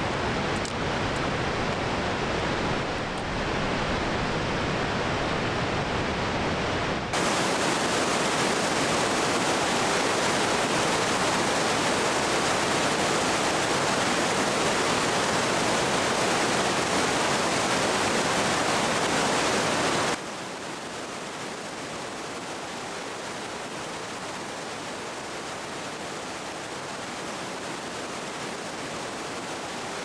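Whitewater of a mountain creek at peak flow, rushing and cascading over granite boulders: a steady rush that jumps suddenly louder and fuller about a quarter of the way in, then drops to a quieter, thinner rush about two-thirds of the way through.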